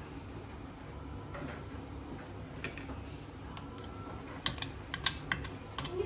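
Light clicks and taps, a few at first and sharper and more frequent near the end, over a low steady hum.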